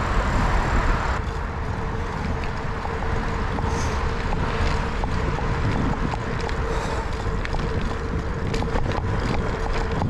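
Wind buffeting the microphone of a handlebar-mounted camera on a moving bicycle, over the rumble of tyres rolling on a paved trail, with a steady hum. Small clicks and ticks run through it and come more often near the end.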